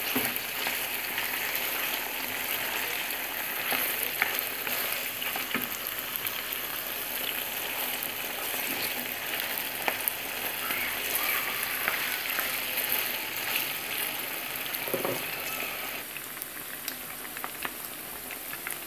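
Chicken pieces frying in hot oil in a pan: a steady sizzle with scattered small pops and clicks, stirred now and then with a wooden spatula. The sizzle drops a little in level near the end.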